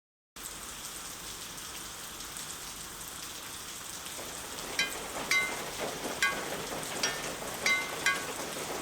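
Cartoon rain: a steady hiss of falling rain, joined about halfway in by water drops plinking one after another with a short ringing tone.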